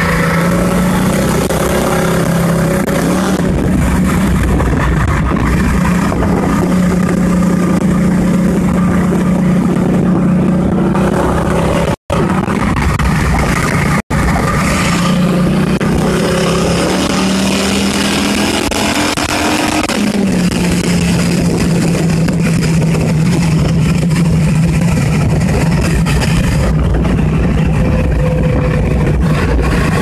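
Car engine running steadily at highway speed, heard from inside the cabin along with road noise. The engine note shifts a few times, and the sound cuts out completely twice, briefly, about twelve and fourteen seconds in.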